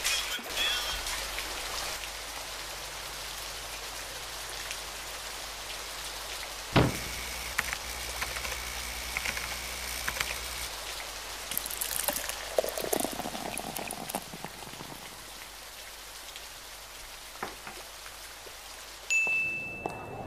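Steady hiss of falling water, like rain, with one sharp knock about seven seconds in.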